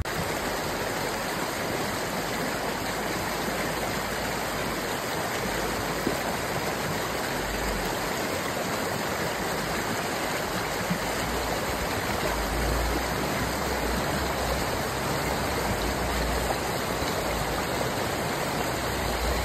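River water rushing steadily over a shallow ford.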